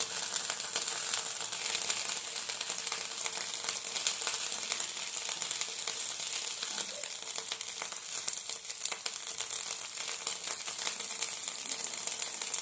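Betel, karpuravalli (Indian borage) and basil leaves sizzling in a pan over a low flame, a steady hiss with many small crackles, as the leaves are warmed to soften them.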